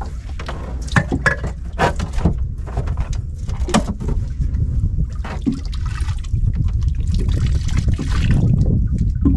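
Seawater splashing and trickling as a line of shell octopus traps is hauled up out of the sea, with several short knocks and splashes over a steady low rumble.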